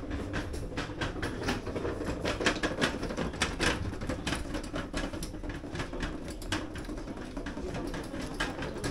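Wheels of a hand trolley rattling and clacking over a stone-tiled floor, an uneven run of clicks over a low rumble.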